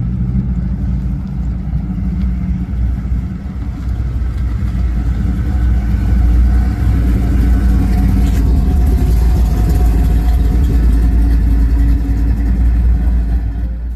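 Henry J pro street car's engine running at low speed with a deep, loud exhaust note as the car rolls slowly past. It grows louder about six seconds in, as the car comes close.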